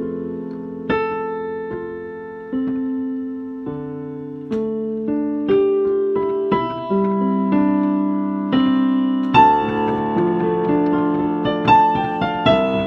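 Piano playing a slow solo piece: chords struck roughly once a second and left to ring, with quicker, busier notes from about two-thirds of the way in.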